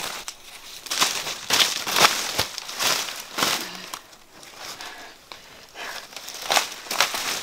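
Dry fallen banana leaves rustling and crackling in several irregular bursts as a person moves about on them and handles bunches of bananas.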